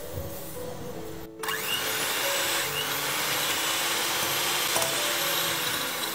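Electric hand mixer starting suddenly about a second and a half in and running steadily, its wire beaters creaming cubed butter with granulated erythritol in a glass bowl. Before it, a quieter stretch while the granulated erythritol is poured over the butter.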